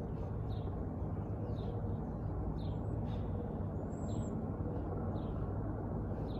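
Helicopter droning steadily at a low pitch, with a bird chirping about once a second above it and one high whistled call about four seconds in.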